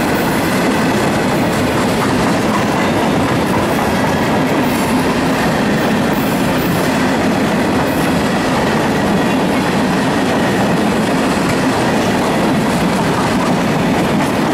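Freight train rolling steadily past, a continuous loud noise of wheels on the rails.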